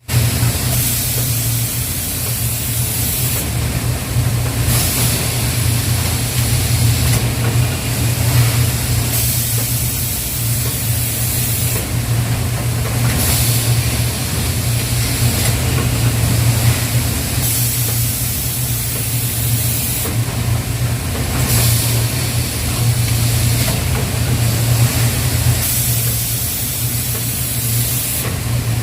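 Rice milling and packaging machinery running: a steady low hum, with a high hiss over it that starts and stops every two or three seconds.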